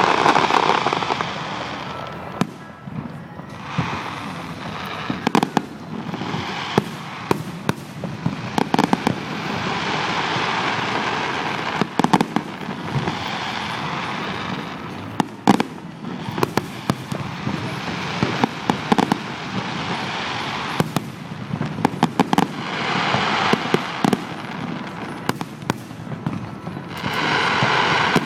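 A fireworks display: a run of sharp bangs from bursting shells, some in quick clusters, with swells of rushing, crackling noise lasting a few seconds each between them.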